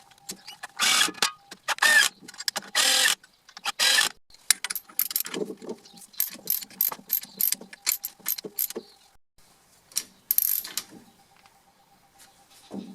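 Ratchet wrench clicking in short runs, with a few longer rasping strokes near the start, as the pinion nut of a GM 10-bolt 7.5-inch rear axle is tightened to crush the crush sleeve and set pinion bearing preload.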